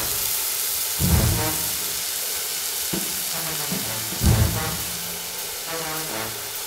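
Hot-oil sizzle of food frying, used as a sound effect over theme music, with two deep booming hits, one about a second in and one just past four seconds.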